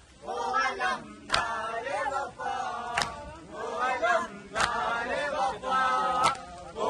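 A group of men chanting a nauha, a Muharram lament, in unison. A sharp beat keeps time about every second and a half.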